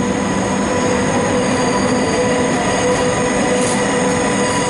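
Electric passenger train moving along the platform, a steady rushing rail noise with several steady whining tones over it.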